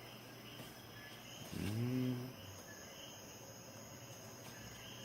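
Faint cricket chirping, a short chirp about twice a second. About two seconds in, a brief low voiced sound rises and falls in pitch.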